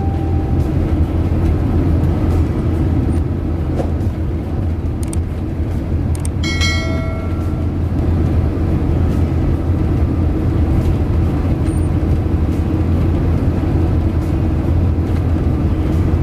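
Steady low rumble of a motor vehicle driving along a road, with a brief chime-like tone about six and a half seconds in.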